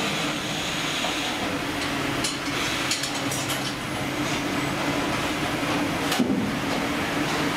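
Fish-processing line machinery and conveyor belts running: a steady mechanical din with a low hum, scattered clicks and clanks, and a louder knock about six seconds in.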